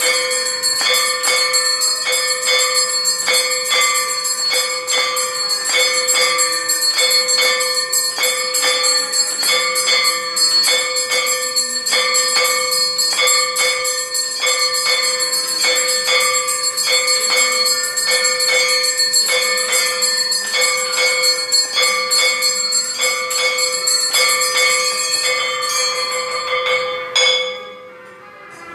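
Temple bells ringing continuously in a steady, even rhythm of strikes during the aarti, with the tones sustained between strokes. The ringing stops abruptly near the end.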